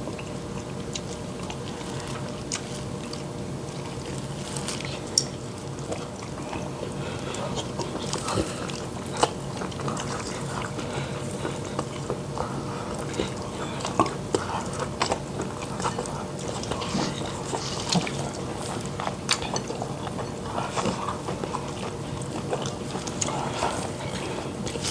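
People eating soup: slurping and chewing, with scattered short clicks and clinks of spoons or bowls, over a steady low hum.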